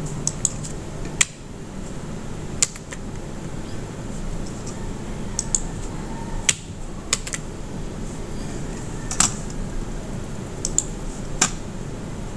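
Computer keyboard and mouse clicks, about a dozen sharp clicks spaced irregularly, over the steady low hum of computer fans.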